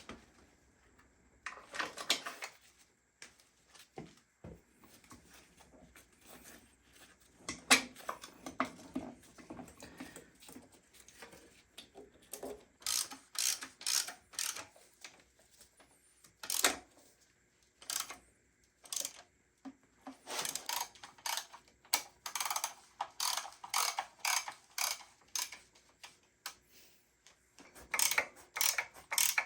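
Ratchet wrench clicking in runs of quick strokes, about two a second, as engine mounting bolts are run in, with a few single sharp knocks of tools on metal.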